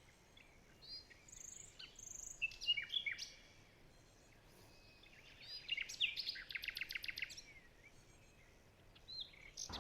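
Songbirds chirping, short high calls in the first few seconds, then a fast trill of repeated notes near the middle.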